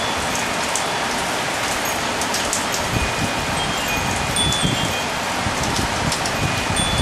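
Steady rain falling and spattering on surfaces, with metal wind chimes ringing now and then in short, high, clear tones.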